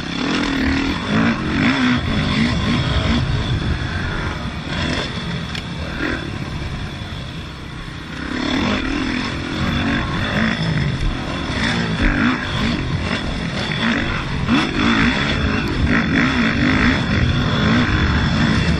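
2005 Yamaha YZ450F's single-cylinder four-stroke engine ridden hard on a motocross track, revving up and down as the throttle opens and closes. The engine eases off for a few seconds about a quarter of the way in, then pulls hard again.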